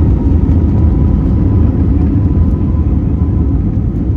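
Passenger airliner's engines running at high power for takeoff, a loud steady deep rumble with a faint steady whine above it.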